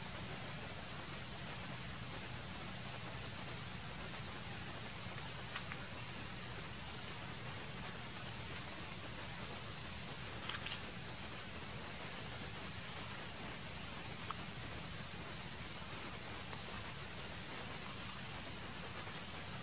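Steady high-pitched drone of an insect chorus, with a few faint clicks.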